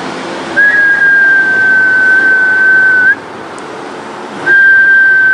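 A high, steady whistle-like tone held for about two and a half seconds, ending with a quick upward flick in pitch. A second tone at the same pitch starts about a second and a half later.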